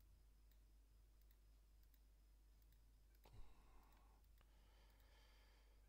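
Near silence with faint computer-mouse clicks over a low steady hum, and a brief soft noise a little over three seconds in.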